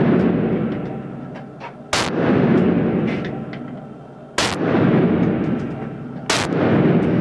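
Steyr AUG bullpup rifle fired three times in single shots, about two seconds apart. Each shot is a sharp crack followed by a long, fading echo in the enclosed shooting range.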